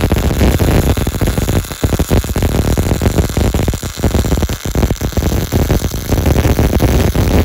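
MIG (GMAW) welding arc on structural steel, crackling and sputtering steadily with an irregular, dense frying sound.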